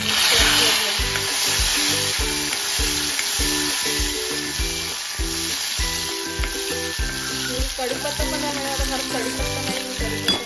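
Tempering for dal, garlic, green chillies and seeds frying in hot oil in a steel kadai, sizzling as it is stirred with a spatula. The sizzle starts abruptly and is loudest in the first couple of seconds. Background music with a steady beat plays under it.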